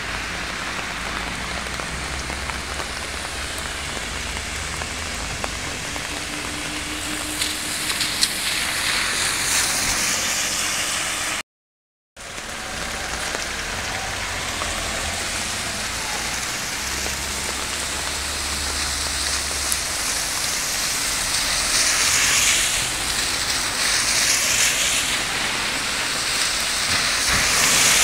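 Steady rain falling on a flooded street, with cars passing through the standing water, their tyres swishing and splashing, louder toward the end. The sound cuts out completely for about half a second near the middle.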